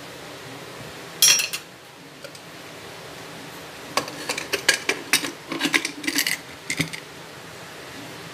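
Metal clinks and scrapes of a ladle and lid against a pressure cooker: a short rattle about a second in, then a run of quick clinks from about four to seven seconds in, over a steady background hum.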